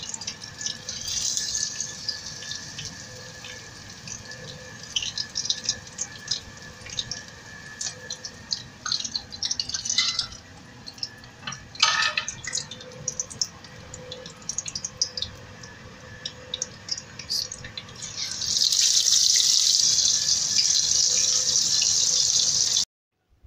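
Fish frying in hot oil in a wok, sizzling with scattered pops and crackles and a sharp knock about twelve seconds in. A much louder, dense sizzle sets in near the end, then cuts off abruptly.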